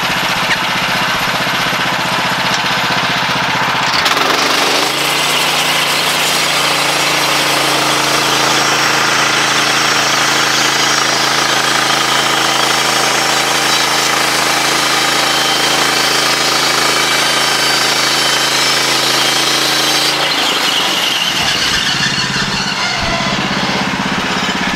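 Woodland Mills HM126 bandsaw sawmill's gasoline engine running. About four seconds in it speeds up to a steady higher pitch as the band blade saws along the log, then drops back to idle about twenty seconds in.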